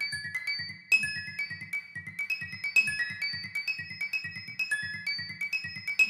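Background music: a high melody of short, ringing notes in a repeating pattern over a soft, pulsing low beat.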